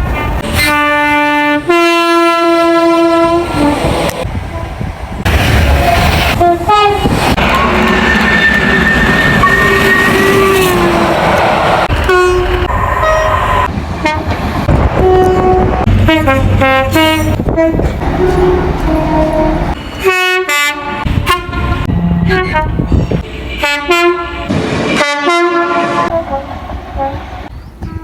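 Two-tone train horns sounding again and again: short and longer blasts, often two pitches one after the other, from several trains in turn with abrupt changes between them. Around the middle the running rumble of a passing train sits under a held horn note.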